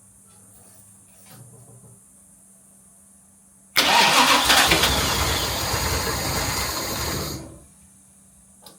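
Jaguar MkII's XK straight-six being cranked on the starter motor for about three and a half seconds in an attempt to start it. It begins suddenly, then dies away, with a small click near the end.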